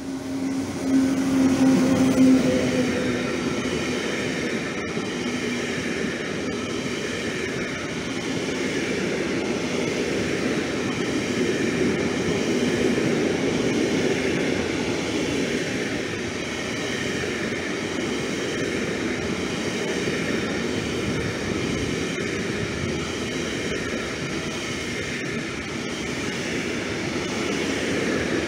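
SNCF BB 26000 'Sybic' electric locomotive passing close by, its steady tone loudest in the first couple of seconds and fading out about two and a half seconds in. A long freight train of tank-container wagons then keeps rolling past with a continuous rumble and clatter of steel wheels on the rails.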